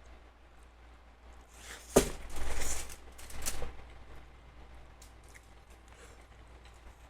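Eating sounds: a sharp click about two seconds in, then two short, noisy bursts of a person eating, over a low steady hum.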